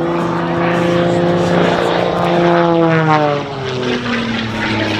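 Extra 300S aerobatic plane's piston engine and propeller passing close by at speed. The engine tone is steady and grows louder, then drops in pitch about three seconds in as the plane goes past.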